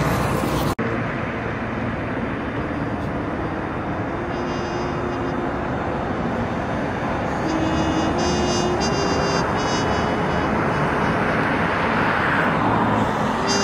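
City street traffic noise: a steady, loud rush of passing vehicles. From about halfway through, a faint series of pitched tones steps upward in pitch.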